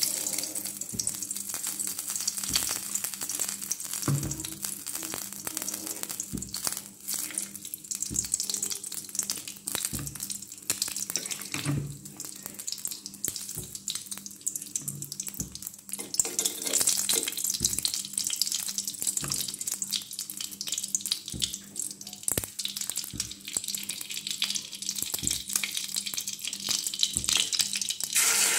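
Ghee sizzling and crackling as it melts in a hot aluminium karahi, with small pops and spits. The crackle grows denser about halfway through, and right at the end it jumps louder as beaten egg is poured into the hot ghee and starts to fry.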